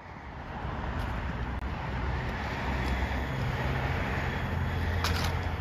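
Road traffic: a steady low rumble of car engines and tyres as vehicles pass, heavier in the second half, with one brief click about five seconds in.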